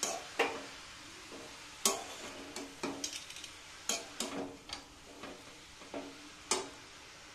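A spatula scraping and stirring grated carrots frying in ghee in a steel kadai: about ten irregular scrapes and clicks over a faint sizzle, as the carrots are sautéed down until soft for gajar ka halwa.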